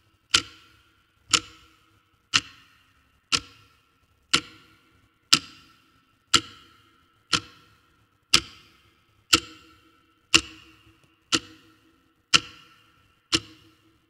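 Clock ticking once a second, each tick a sharp click with a short ringing tail.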